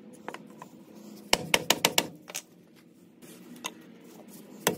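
Wood block knocking against the carrier shims of a Dana 44 differential to drive them into the housing: a quick burst of about eight sharp knocks a second in, and another burst starting near the end.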